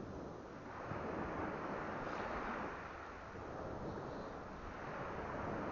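Wind and North Sea surf on the beach: a steady rush of noise that swells about a second in and again near the end.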